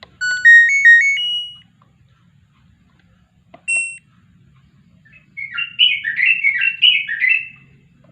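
An LG inverter washing machine control board's buzzer plays its power-on tune, a short run of rising stepped beeps. A single short beep follows about three and a half seconds in, then a warbling, chirping run of tones lasting about two seconds.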